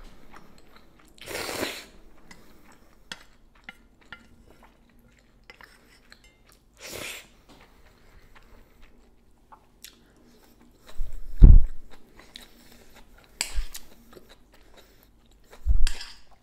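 Close-miked eating of cold chewy noodles: short slurps, chewing and light clicks of chopsticks against a small metal bowl. A loud low thump comes about eleven seconds in, with two softer ones near the end.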